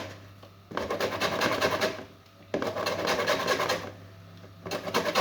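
Orange peel being rasped on a metal hand grater in three stretches of quick scraping strokes, each about a second long, with short pauses between them.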